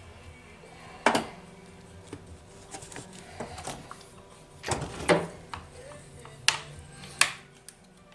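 Sharp knocks and clicks of hand tools and parts handled during a chainsaw bushing repair, about five louder ones spread through, over faint background music.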